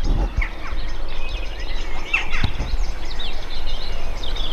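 Many short, high bird chirps and peeps in quick succession, over a steady low rumble.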